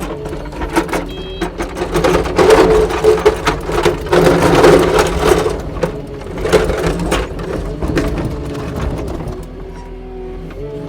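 Kubota SSV65 skid steer's diesel engine running and working under load while plowing snow, with many short knocks and rattles. It is louder in two stretches in the first half and eases off near the end.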